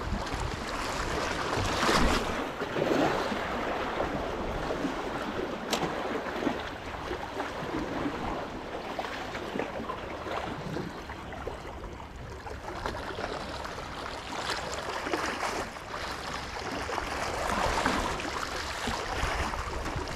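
Sea waves washing against the rocks of a jetty, with wind buffeting the microphone in gusts. A single sharp click comes about six seconds in.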